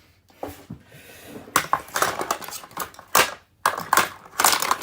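Plastic housing and parts of a Dirt Devil race-car vacuum being smashed and broken apart: a run of irregular cracks, crunches and clatters.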